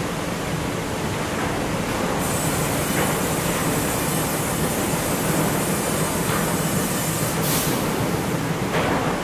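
Sawmill timber docking line running: a steady mechanical rumble of roller and chain conveyors, with a few sharper clanks, the strongest about seven and a half seconds in.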